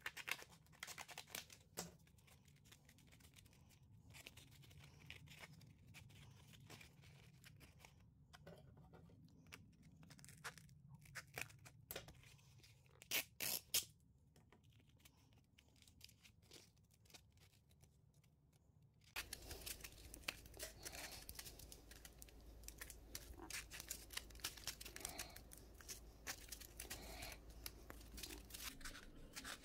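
Scissors cutting through a cloth-backed sanding belt, with sandpaper being handled: faint, scattered snips and rasps, and two louder rasps about 13 seconds in. After about 19 seconds a faint steady hiss joins light rustling and scratching as the sandpaper is worked around a small drum.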